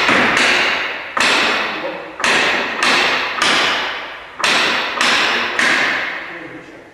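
About ten hammer blows on the planking of a wooden boat hull, spaced unevenly, some in quick pairs. Each blow is a sharp knock followed by a long ringing decay.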